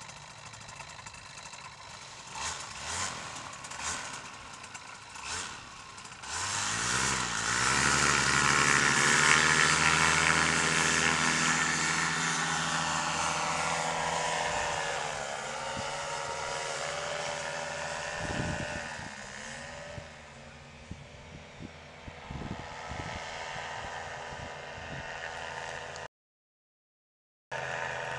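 Paramotor engine and propeller running quietly, then opened up to full power about six seconds in with a rising whine for the takeoff run. The loud steady note then slowly fades and drops in pitch as the paramotor climbs away.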